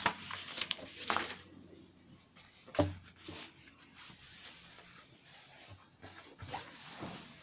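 Rustling of kraft-paper pattern pieces and black lining fabric as they are moved and spread out by hand, with a single thump about three seconds in.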